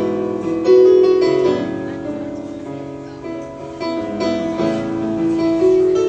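Live instrumental music without singing: keyboard notes and chords struck and left to die away, with several fresh attacks through the passage.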